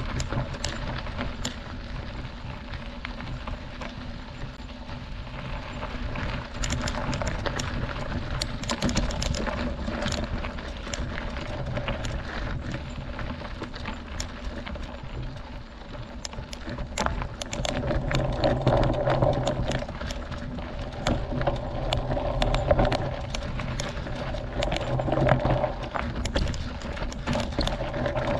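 Mountain bike rolling over a dirt and gravel road: tyres crunching on loose stones, with a steady run of small clicks and rattles from the bike over a low rumble, louder in the second half.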